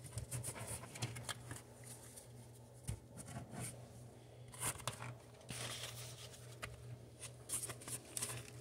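Faint crinkling and rustling of a plastic Pokémon card pack wrapper being handled and torn, with light clicks of cards being handled; the crinkling comes in short bursts, the densest around the middle.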